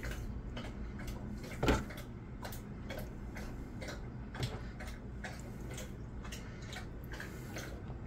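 A dog lapping water from a bowl: a steady run of light wet ticks, about three or four laps a second, with one louder lap a little under two seconds in.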